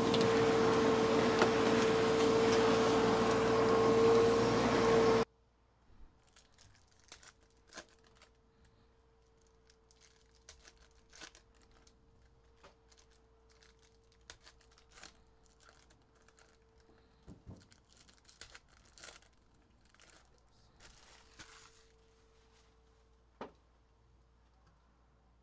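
A steady hiss with a faint hum cuts off suddenly about five seconds in. After it come faint, scattered rustles, crinkles and clicks of foil trading-card pack wrappers and cards being handled and stacked on a table.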